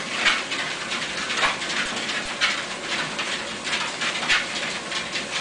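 Dachshunds on a running treadmill: a steady rustling noise with sharp, scratchy bursts about twice a second.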